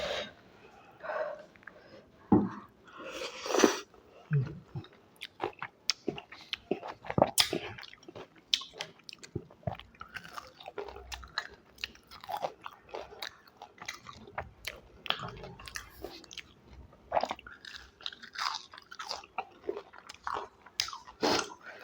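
A person eating fried street food close to the microphone: steady chewing with many short, crisp crunches from bites.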